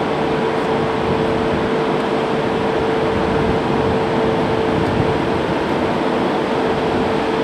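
Steady machinery hum: an even, unbroken drone with a constant mid-pitched tone running through it.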